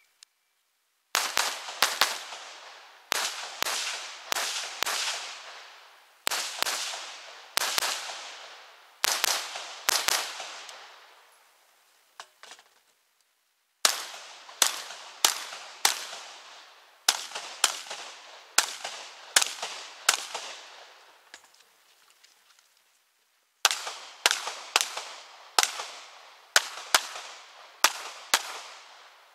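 Strings of rapid gunshots, several a second, each ringing out with a short echo. The shots come in bursts separated by brief pauses: a long gun fired from the shoulder, then a handgun near the end.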